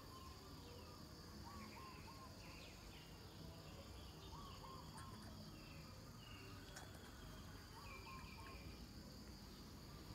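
Faint background ambience: distant birds chirping in short groups of two or three notes every few seconds, over a steady high drone.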